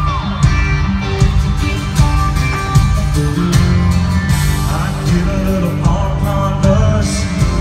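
Live country band music over an arena sound system: acoustic guitar and band with a steady drum beat.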